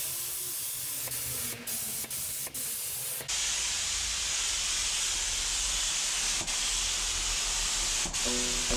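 Primer being sprayed onto car bodywork: a steady hiss of spray, broken by a few short pauses between passes, growing fuller about three seconds in. Music comes in near the end.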